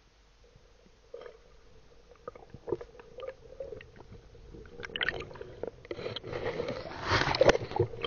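Muffled water sloshing and gurgling heard underwater, with scattered knocks, getting louder and busier over the last few seconds.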